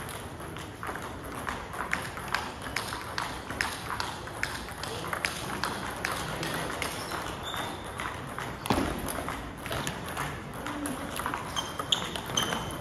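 Table tennis balls clicking off bats and tables in a busy playing hall, many sharp irregular clicks over background chatter, with one heavier thump about two-thirds of the way through.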